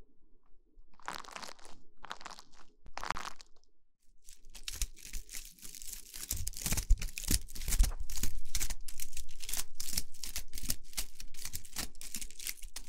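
Close-miked ASMR rubbing and crinkling right on the microphone: three short scratchy rubs about a second apart, then from about four seconds in a fast, continuous run of crackling, crunchy strokes.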